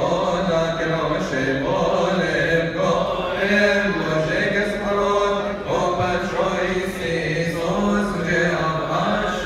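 A group of men chanting a Coptic Orthodox liturgical hymn in unison, slow long-held notes that rise and fall.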